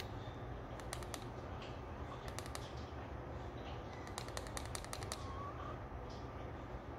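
Plastic fire button of a SMOK Scar-18 vape mod clicked in quick bursts: a few clicks about a second in, a few more midway, then a faster run of about eight clicks that switches the mod off. A steady low hum lies underneath.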